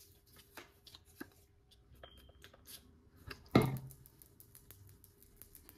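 Small clicks and rustles of a body mist bottle and paper scent card being handled, with one louder short hiss about three and a half seconds in.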